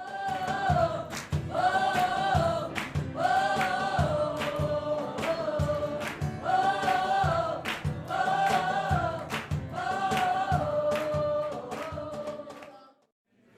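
Gospel-style choir singing over a steady beat, with the same melodic phrase repeating. It ends abruptly shortly before the end.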